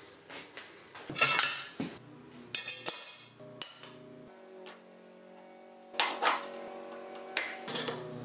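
Steel parts clinking and clanking against a steel welding table: a steel ring being set down and welding clamps being placed and tightened. The sharp metal knocks ring briefly, with a loud cluster about a second in and another near six seconds.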